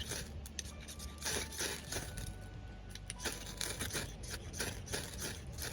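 Irregular rustling and scraping from hands working close to the microphone, over a low steady rumble of wind on the microphone.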